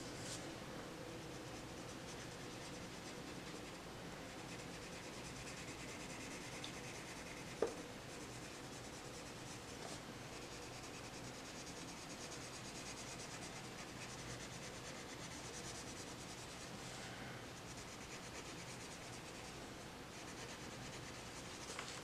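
Faint scratching of a colored pencil's soft wax core shading on paper in quick back-and-forth strokes, with a single sharp tap about seven and a half seconds in.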